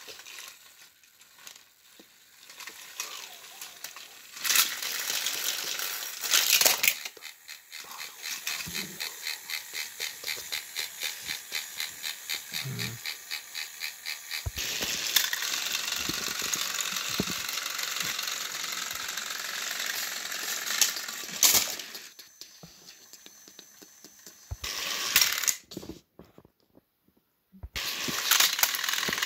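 Battery-powered Thomas & Friends toy engines running on plastic track, pushing nose to nose: a steady motor whirr with wheels clicking about three or four times a second for a stretch, and sharp plastic clatters and knocks in between. The sound briefly stops near the end, then the whirr starts again.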